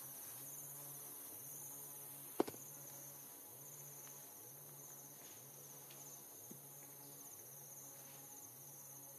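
Insects chirping in a steady, evenly pulsing rhythm, with one sharp click about two and a half seconds in.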